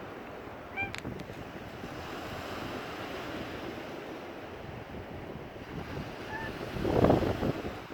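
Stormy Black Sea surf breaking on the shore, with wind buffeting the microphone; a louder wave crash comes near the end.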